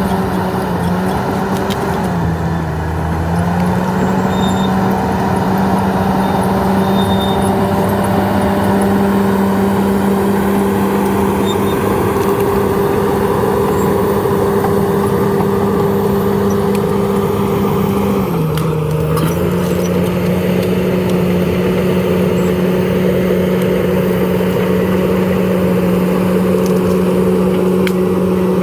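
Komatsu D68ESS bulldozer's diesel engine running steadily at high revs. Its pitch dips briefly and recovers twice: about two seconds in, and again about two-thirds of the way through.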